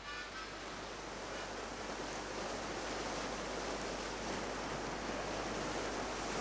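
Sea waves and wind making a steady rushing noise, which swells over the first second or two and then holds.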